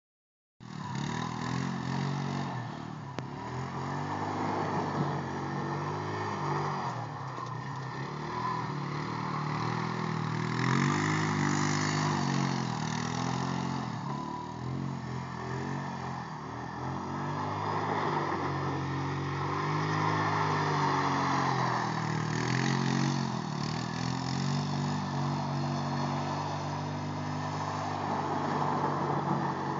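Four-wheeler (ATV) engine running as it is ridden in circles on a frozen pond, its pitch rising and falling over and over as the throttle is opened and eased.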